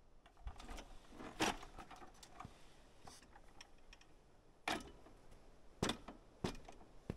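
Folding aluminium entry steps at the back of an Arctic Fox truck camper clanking as they are pulled out and set down: a string of sharp metallic knocks and clicks, several separate clanks.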